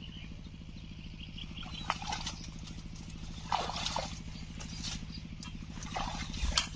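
Brush and dry twigs rustling and snapping in several short bursts as a person pushes and climbs through tangled roots and vegetation, over a steady low hum.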